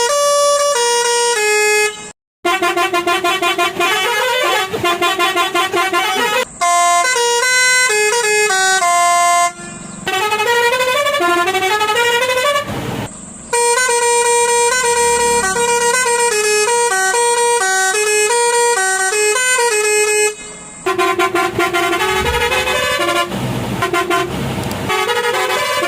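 Roots hexatone musical air horn, worked by melody makers, playing tunes as quick runs of stepping notes. Several tunes follow one another with brief breaks between them.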